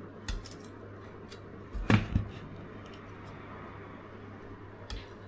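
A few light knocks and clicks of things being handled and set down on a hard surface while sharpening gear is set up, the loudest a double knock about two seconds in, over a faint steady hum.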